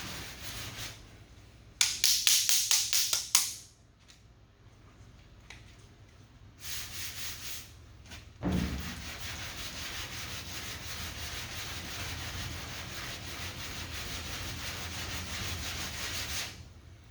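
Sanding block with sandpaper rubbing over lacquer primer on a car body panel: a burst of rapid back-and-forth strokes, about four a second, then a single thump and long, steadier, quieter strokes. This is block sanding the primer to show up low spots left over a bondo dent repair.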